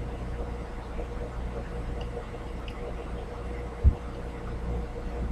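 Steady low room hum with a faint steady tone above it, and one dull low thump about four seconds in.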